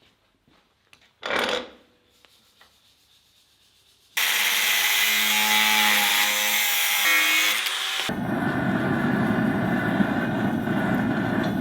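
A short whoosh, then from about four seconds in a loud, steady abrasive power tool grinding steel. About eight seconds in it switches abruptly to a coarser, lower grinding, which cuts off sharply at the end.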